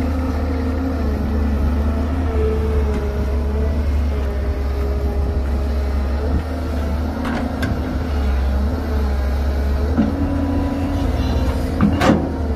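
Heavy diesel excavator engine running, its pitch rising and falling as the machine works under load. A few sharp knocks come midway, and a louder clatter comes near the end.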